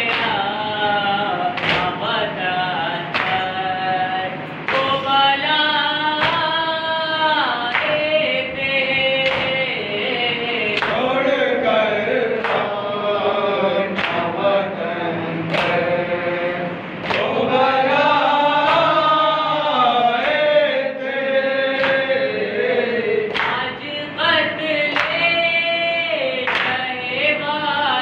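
Several men chanting a nauha, a Shia mourning lament, in a slow sung melody led by one reciter with the others joining. Sharp chest-beating (matam) thumps mark the beat about every second and a half.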